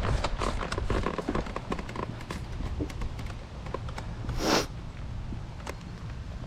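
Footsteps and the rustle of a person moving about, with many small clicks and taps, and one brief, louder burst of noise about four and a half seconds in.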